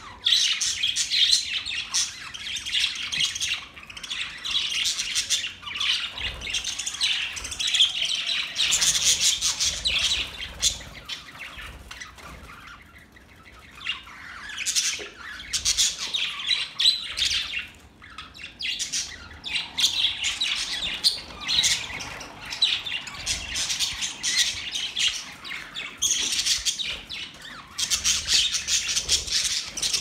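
A flock of budgerigars chattering together, a dense mix of chirps, warbles and squawks that thins out briefly about twelve seconds in.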